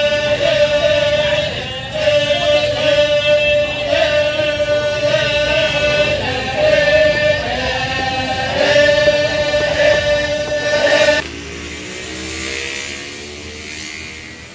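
Voices singing a slow song in long held phrases, breaking off every couple of seconds, cut off abruptly about eleven seconds in. A quieter hum rising in pitch follows and fades out near the end.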